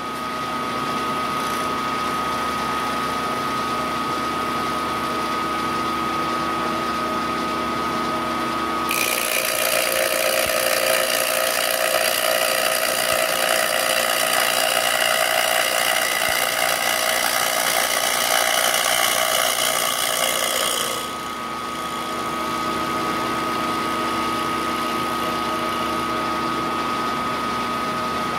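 Milling machine spindle running with a steady whine. About nine seconds in the end mill bites into the thin, flimsy workpiece in a climb cut, and a louder cutting noise runs for about twelve seconds, then falls back to the spindle alone.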